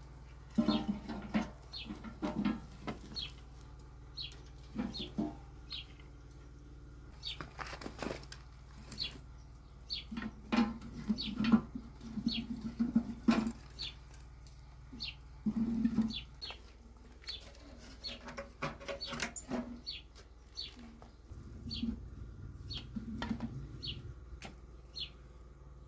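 Dry wooden sticks and twigs knocking and clattering together as they are broken and stacked into a small barrel wood stove, in bursts that are loudest in the middle. Small birds chirp over it, short high chirps recurring every second or so.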